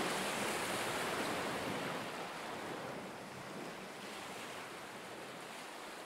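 Rushing sea water and wind noise, fading out slowly.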